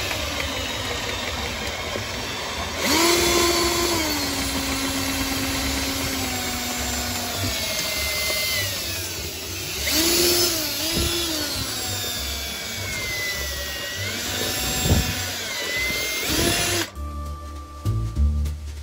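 A cordless drill drives a drum-type drain snake, its cable spinning down the clogged kitchen sink drain pipe. The motor whine rises and falls in pitch as the speed changes, then stops near the end, leaving background music.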